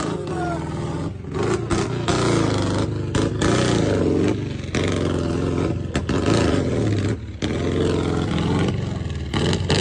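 Off-road 4x4's engine revving hard in repeated bursts as it claws up a steep mud slope. The note rises and falls with short lifts off the throttle, and there is some clatter and scraping from the vehicle.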